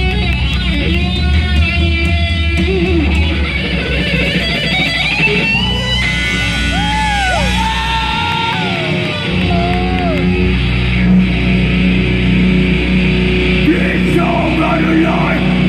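Live rock band playing loud electric guitars, bass and drums, with notes bending and sliding over the steady wall of sound.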